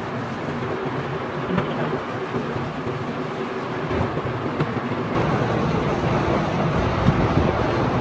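Steady din of workshop machinery running, becoming louder and deeper about five seconds in, with a few faint knocks.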